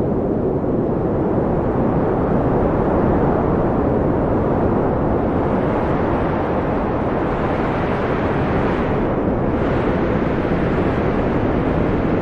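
Wind blowing steadily as a low rushing noise, swelling a little higher about eight seconds in and then easing.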